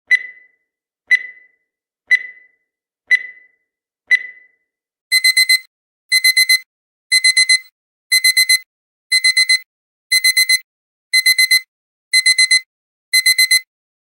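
Countdown timer's electronic beep, once a second, for the last few seconds of the count. About five seconds in, the timer runs out and the digital alarm-clock beeping starts: four quick high beeps, repeated every second.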